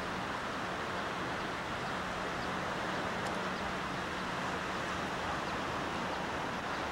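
Steady hiss of wind and breaking surf on an open beach, with a faint low hum underneath.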